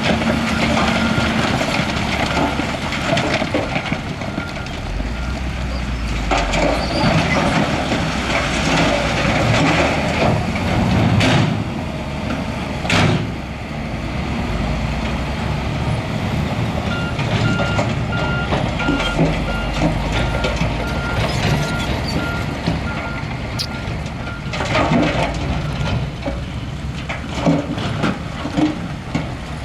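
Heavy diesel construction machinery running under load, with rock and gravel clattering. A backup alarm beeps briefly at the start and again steadily for several seconds in the second half, and two sharp noises a couple of seconds apart come about halfway through.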